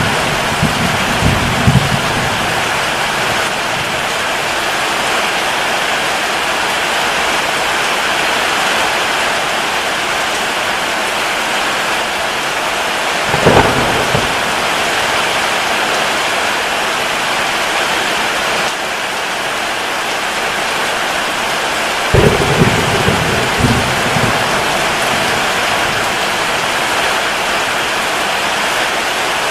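Steady rain falling, with thunder: low rumbling near the start, a sharp clap about halfway through, and more rumbling about three quarters of the way in.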